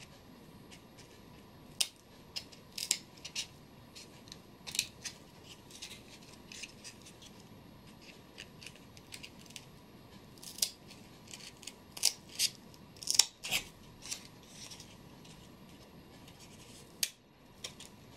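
Scissors cutting slowly through a small, brittle blue plastic cup, in short irregular snips and crunches: a few in the first seconds, a busier run about ten seconds in, and a last snip near the end.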